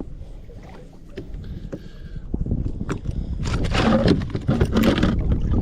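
Wind rumbling on the microphone, rising in the second half, then a burst of rustling and knocking from about three and a half to five seconds in, from a fish being handled on a kayak.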